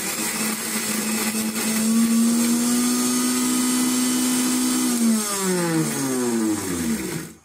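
Electric mixer grinder running with crushed crab claws in its steel jar: a loud, steady motor hum with a noisy grinding wash over it. About five seconds in it is switched off and the hum falls in pitch as the motor spins down, stopping just before the end.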